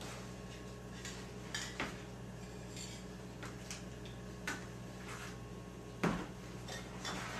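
Scattered knocks and light clinks as aerosol spray paint cans and small parts are picked up and set down on a workbench, the loudest a dull thump about six seconds in.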